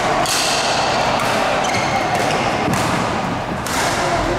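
Badminton rally: rackets strike the shuttlecock several times, roughly once a second, over the steady background noise of the hall.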